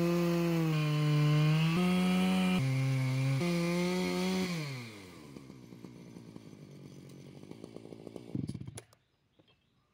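Two-stroke chainsaw on a chainsaw mill running at full throttle while ripping a cedar log lengthways, its pitch jumping between a few steady levels. About halfway through the engine winds down and the sound drops to a faint murmur.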